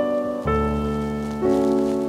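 Background piano music: sustained chords that change about once a second.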